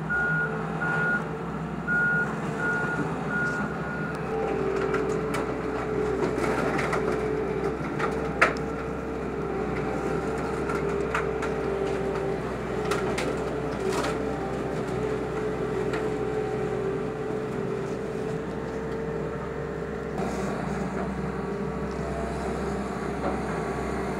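Excavator running steadily while breaking up demolition debris, with a reversing alarm beeping for the first few seconds. Wood and debris crack and knock now and then; the loudest crack comes about eight seconds in.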